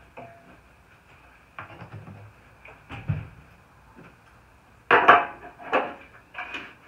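Handling knocks around a Honda TRX300 ATV: a few soft knocks, a dull thump about three seconds in as the plastic gas can is set down on the floor, then a run of louder sharp clacks and rattles near the end from hands working at the handlebars and tank.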